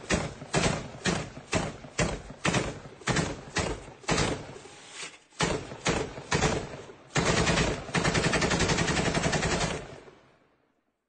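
Gunfire from an automatic firearm shot at random: quick single shots, about two or three a second, then a continuous automatic burst of about two and a half seconds that stops, its echo dying away.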